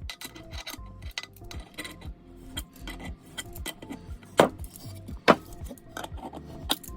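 Stainless steel wrench of a multi-tool clinking and ticking against a 3/4-inch bolt and nut as it works them, with two sharper metal clacks a little past the middle, over background music.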